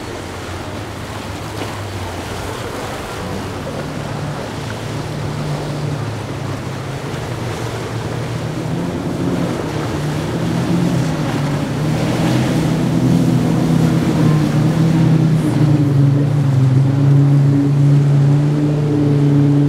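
Quad outboard engines on a center-console boat running at speed, their low steady hum growing louder as the boat comes closer, over the rush of waves, hull spray and wind.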